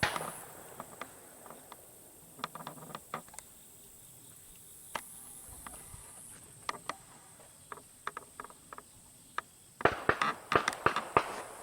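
Insects droning steadily in a high band, with scattered sharp clicks and knocks and a quick cluster of them about ten seconds in.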